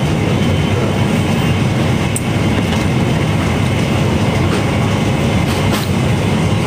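A steady, loud low rumble with a hiss over it and no speech, with two faint ticks about two seconds in and near the end.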